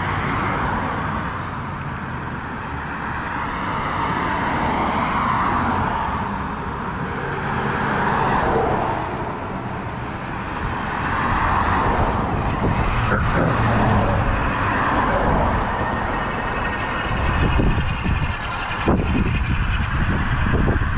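Bafang BBS-HD mid-drive motor on a fat-tire electric bike under way. Its whine rises and falls in pitch with speed over a steady rush of riding noise.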